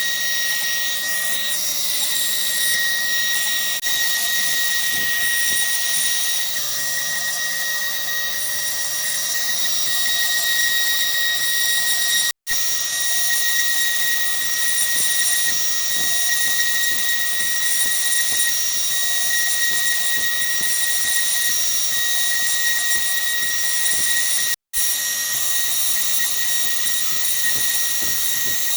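MillRight CNC Mega V router spindle running with a steady whine while its bit carves a 3D relief into wood. The sound cuts out for an instant twice, about a third and two thirds of the way through.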